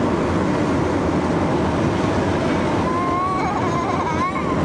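Wind rushing in through an open side window of a moving car, over steady road noise. About three seconds in, a high wavering tone rises above it for about a second.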